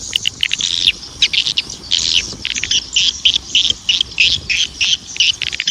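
Rapid series of short, high chirps from a small chirping animal, about three a second, uneven in loudness.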